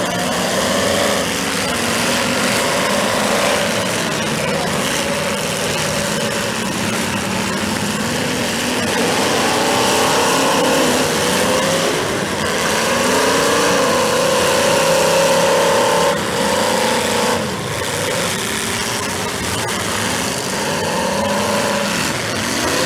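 Several demolition derby cars' engines revving at once, their pitches rising and falling and overlapping.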